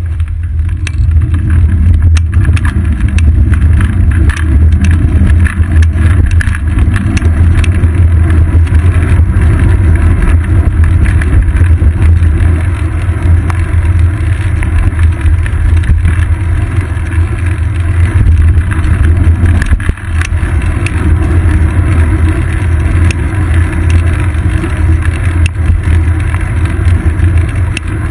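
Wind buffeting and road rumble on a seat-post-mounted GoPro camera riding on a moving bicycle: a steady low rumble, with scattered small knocks and clicks as the wheels run over bumps in the pavement.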